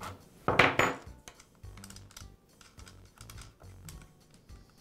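Light metal clicks and taps from hand work on an Echo chainsaw's chain tensioner and brake cover, with one louder clatter about half a second in.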